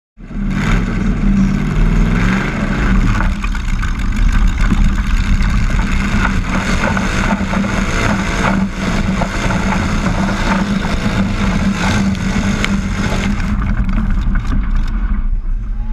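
Modified super rod class garden pulling tractor's engine at full throttle during a pull, heard close up from an onboard camera. It revs up and wavers in pitch over the first few seconds after launch, then holds a steady loud pull.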